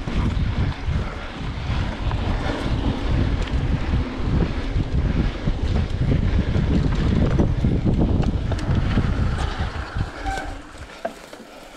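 Wind buffeting the microphone of a moving mountain bike, a heavy low rumble mixed with tyre noise on a dirt trail and scattered clicks and knocks from the bike. It dies down about ten seconds in as the bike slows.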